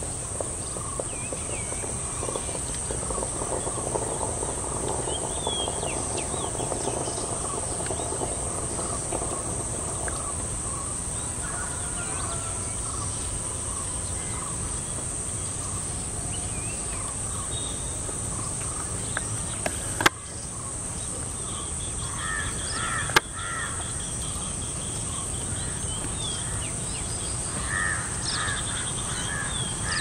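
Outdoor morning ambience with assorted wild birds calling, some of them caw-like, over a steady high hiss and a low rumble. Two sharp clicks come about three seconds apart two-thirds of the way through.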